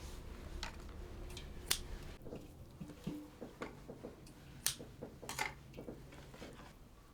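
Irregular light clicks and soft knocks of things being handled, with a few sharper snip-like clicks scattered through.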